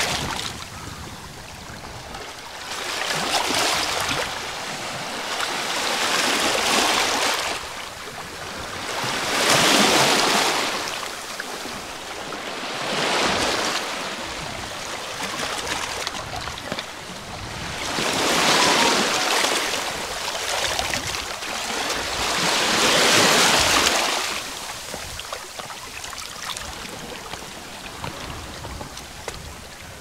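Small sea waves washing in over the rocks and stones of a rocky shore, each surge swelling and draining away every few seconds.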